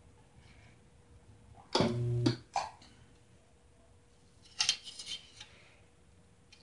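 Spot welder buzzing steadily for about half a second as a weld is made, followed by a click. A few seconds later comes a short clatter of clicks from the metal pieces being handled.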